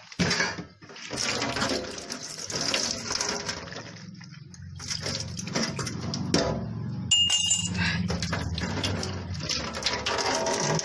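Water running and splashing, in a few spells with short breaks between them.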